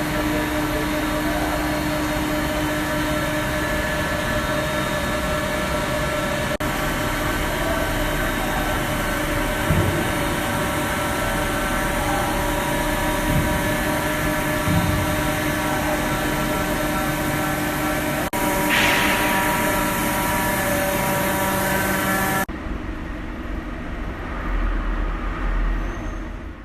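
Plastic pelletising machine running steadily, a loud mechanical hum with several steady tones over a noisy whir. About 22 seconds in, the sound turns quieter and duller.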